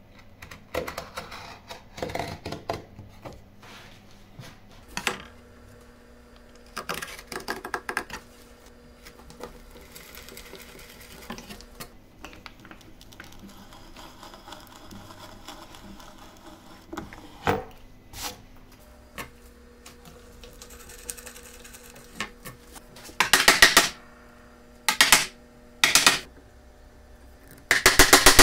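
Hand woodworking in pine. A marking knife scores along a steel rule in short strokes, and an auger bit cuts in quieter stretches. Near the end, a chisel chops out a groove in four loud bursts of sharp, rapid blows.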